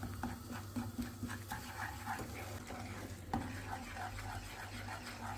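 Wooden spoon stirring and scraping cornmeal toasting in melted butter in a nonstick frying pan, a rhythmic scraping with a soft sizzle under it, and one sharp tap about three seconds in.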